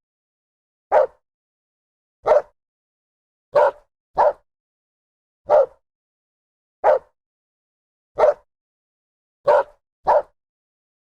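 A dog barking in single, evenly spaced barks about every second and a half, nine in all. Two of them come as quick double barks, with silence between barks.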